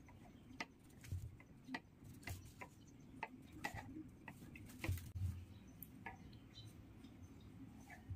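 Faint, irregular ticks and taps of a pencil marking points on a canvas pattern and a measuring tape being handled against it on a tabletop. About a dozen come in the first five seconds and only a few after.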